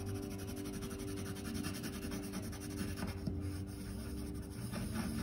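Pencil scratching on paper in rapid shading strokes.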